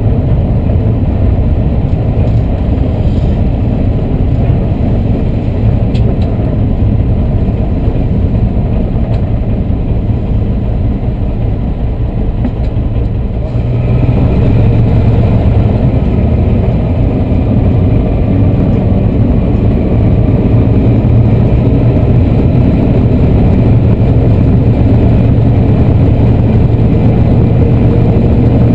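Class 14 diesel-hydraulic locomotive's Paxman Ventura V6 diesel engine running, heard from inside the cab as the locomotive moves along. The steady engine sound steps up in loudness about halfway through and stays louder.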